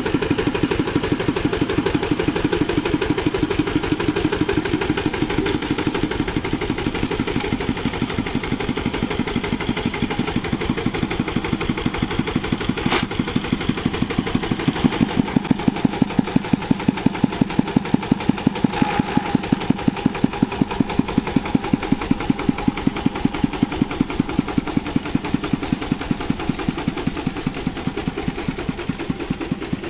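Single-cylinder diesel engine of a two-wheel hand tractor running steadily with an even, regular beat. The beat grows louder about halfway through, with one sharp knock near the middle.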